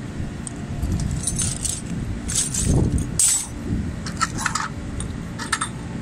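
Metal hand tools clinking and jangling as they are rummaged through in a canvas tool bag, in several separate short bursts over a steady low rumble.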